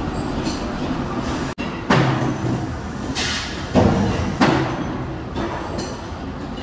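Mechanical power press stamping sheet-steel seat parts: three heavy, sudden thuds (about two seconds in, about four seconds in and just after), with a smaller one near the end, over the press's steady running rumble.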